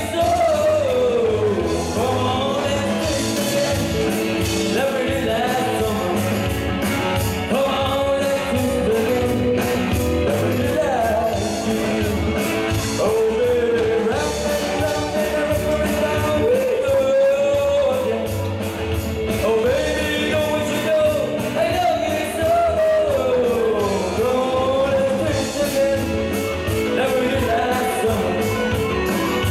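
Live band playing a Vietnamese pop song: a male singer singing into a microphone over drums, electric guitar and keyboard.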